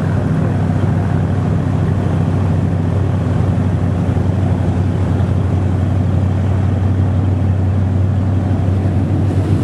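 Powerboat's 460 cubic-inch Ford big-block V8 running steadily at speed, a deep, even engine note over the rush of water and wind.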